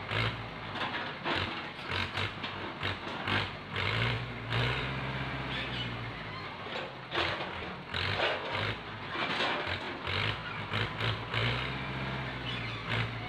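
Tractor diesel engine running steadily while its hydraulic crane and grab load oil palm fruit bunches, the engine note strengthening twice under load, with irregular clatter throughout.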